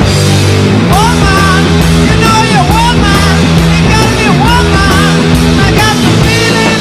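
Loud rock music: guitars and a steady drum beat of about two strokes a second, with a higher melody line coming in about a second in.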